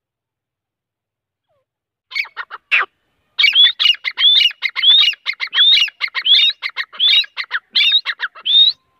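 Grey francolin calling: a few short opening notes about two seconds in, then a run of about eight high, rising phrases repeated evenly, a little more than one a second.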